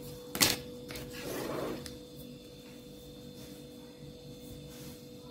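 Quiet handling sounds of hands rolling and knife-cutting a log of soft yeast dough on a table. A single sharp knock comes about half a second in, and a short soft rustle follows about a second later, over a faint steady hum.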